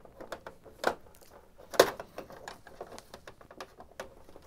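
Canon G5050 printer's plastic side panel being worked into place on the case as its retaining lugs go in: a run of light clicks and knocks, with sharper knocks about one and two seconds in, the second the loudest.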